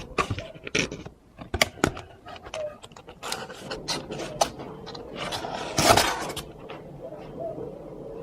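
A gift box being handled and opened: a run of sharp clicks and knocks, then a louder scraping rustle about six seconds in.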